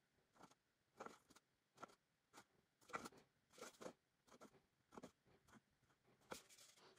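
Faint, irregular scratches and light taps of a marker pen on a thin aluminium drink can as the can is turned in the hand and marked around its top.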